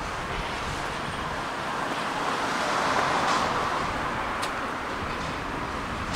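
Moving bus, with steady road and engine noise that swells a little about three seconds in. A short sharp click comes about four and a half seconds in.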